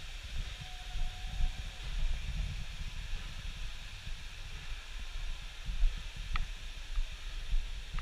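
Wind buffeting on a body-worn action camera's microphone, a low uneven rumble that comes and goes, over a steady outdoor hiss.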